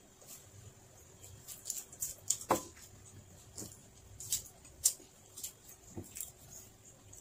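Close-up eating sounds of a person chewing saba bananas: scattered short wet clicks and lip smacks, the loudest about two and a half seconds in, with the soft handling of a banana peel as she peels the next one.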